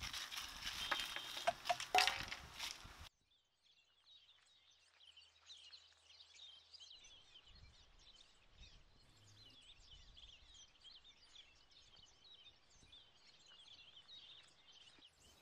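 Scuffing footsteps and rustling on dry ground for about three seconds, cutting off suddenly. After that come faint, high, continuous chirps of birds.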